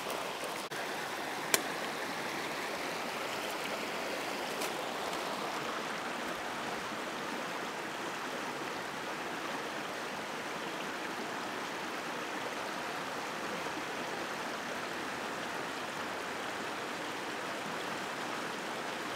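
Spring-fed creek flowing strongly, a steady rushing wash of water. One sharp click about a second and a half in.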